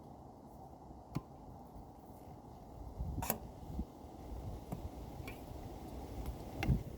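Camping cooking gear being handled while the stove is set up: about six sharp clicks and knocks, the loudest a little past the halfway point and near the end, over low wind rumble on the microphone.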